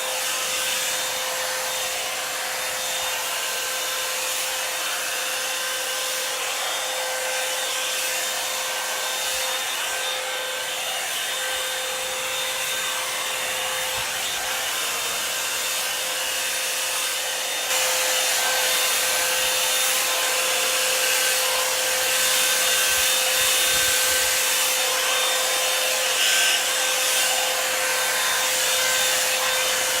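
Revlon Salon One-Step hair dryer brush running on its cool setting: a steady hiss of blown air over a constant motor whine. It gets slightly louder about two-thirds of the way through.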